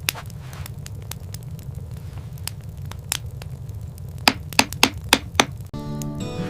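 Sharp taps of a hand tool on a workpiece over a steady low hum: scattered light clicks, then a quick run of five louder strikes a little past the middle. Music with held melodic notes comes in near the end.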